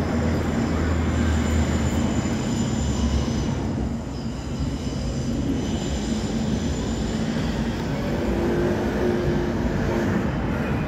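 Steady engine hum and road noise heard from inside a moving vehicle, with street traffic passing outside.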